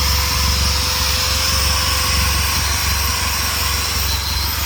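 A machine running steadily: a low pulsing rumble with a constant whine above it.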